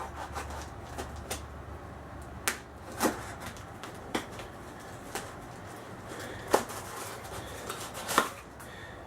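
Cardboard shipping box being handled and turned over: scattered knocks, taps and scuffs, the sharpest about six and a half seconds in and again about eight seconds in.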